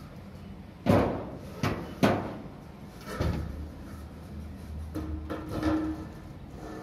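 Steel roofing bars knocking and scraping as they are handled on a roof frame: a few sharp clanks in the first three seconds, the first about a second in the loudest, then a longer scrape with a brief ringing tone a little past five seconds.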